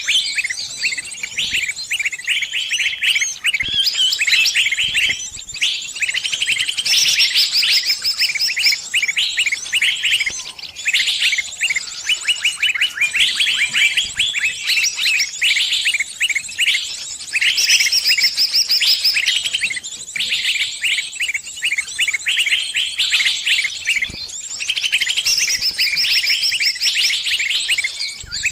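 Small birds chirping and twittering almost without a break: rapid high-pitched trills and chirp phrases, one after another, with only brief gaps.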